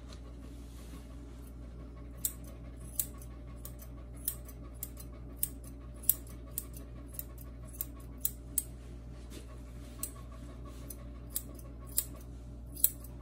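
Curved grooming shears snipping a toy poodle puppy's beard and face hair: short, sharp snips at uneven gaps of about half a second to a second and a half, starting about two seconds in, over a steady low hum.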